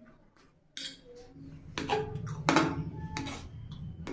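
Close-miked eating: chewing and mouth sounds, with a fork clinking and scraping on a steel plate of chow mein. From about a second in there are several sharp clinks, each ringing briefly.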